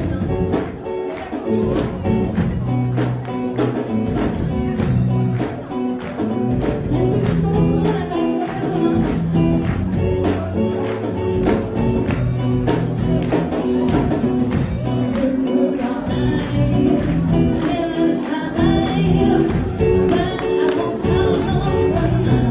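Live band playing a song, with a singer over guitar and a steady drum beat.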